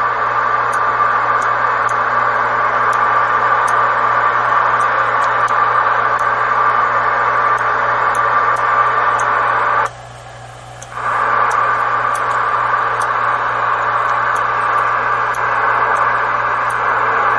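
Receiver static hissing from a 23-channel CB base radio's speaker as it is tuned across the band, with no stations coming through. The hiss cuts out briefly about ten seconds in, then resumes.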